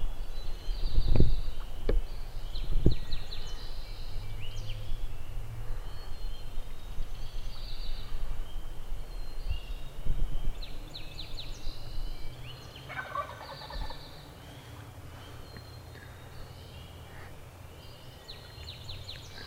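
Wild turkey gobbler gobbling, once about two-thirds of the way in and again starting right at the end, over songbirds chirping. A few low thumps in the first three seconds.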